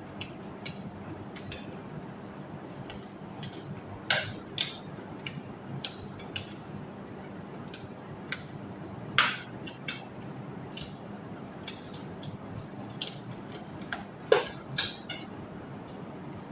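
Small items of equipment being handled and set down: irregular light clicks and taps, with a few louder clatters about four and nine seconds in and a pair near the end.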